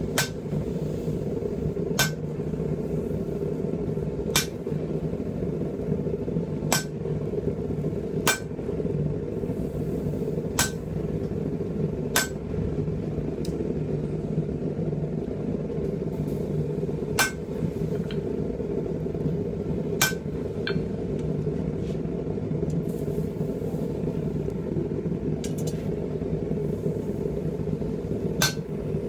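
A blacksmith's forge fire runs with a steady low noise while a steel pipe-tomahawk blank heats in it. About ten sharp metallic clinks of hammer or tongs on steel come through, roughly every couple of seconds.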